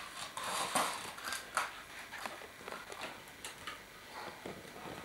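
Scattered light clicks and rustles of toys and gift packaging being handled, with a few sharper clicks in the first couple of seconds.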